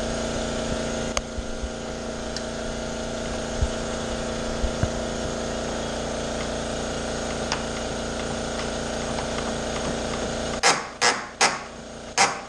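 A steady mechanical hum with a strong low tone, broken by a few faint clicks. It cuts off sharply about ten and a half seconds in, and loud hammer blows follow, two to three a second.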